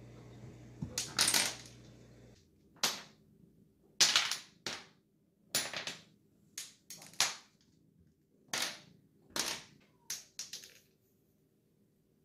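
A series of about a dozen sharp cracks at irregular intervals, each dying away quickly, after a low steady hum that cuts off about two seconds in.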